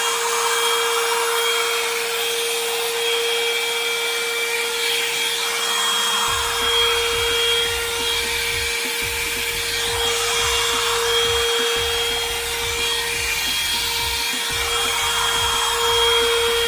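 One-step hot-air brush (hair dryer and styler) running steadily: a constant motor hum with rushing air. A low rumble joins about six seconds in.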